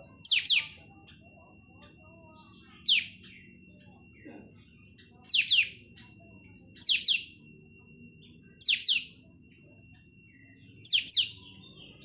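Kapas tembak bulbul calling: six sharp, loud calls a couple of seconds apart, each a quick downward sweep, several of them doubled. A faint steady high tone and low background noise run underneath.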